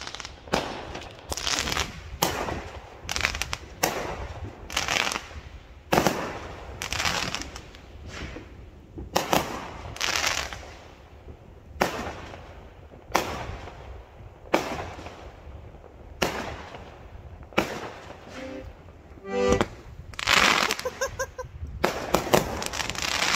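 Consumer fireworks going off: a run of sharp bangs and crackling bursts at irregular intervals of about half a second to a second and a half, each with a short echoing tail.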